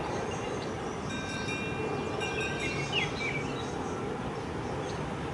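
Steady outdoor background noise with birds chirping, including a short chirp about three seconds in.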